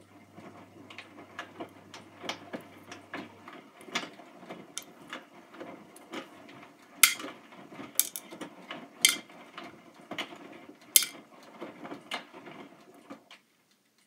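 Hotpoint front-loading washing machine drum turning a wet, soapy wash load: water sloshing and clothes tumbling, with irregular sharp clicks and knocks, the loudest few in the second half. The drum stops about a second before the end.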